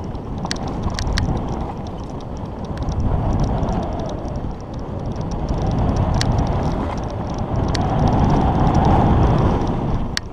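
Wind rushing over an action camera's microphone and mountain bike tyres rolling fast over a dirt trail, swelling and easing as speed changes, with scattered sharp clicks and rattles from the bike.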